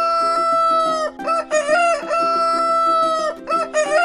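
Rooster crowing: two full cock-a-doodle-doo calls, each a few short rising notes ending in a long held note, with a third crow starting near the end.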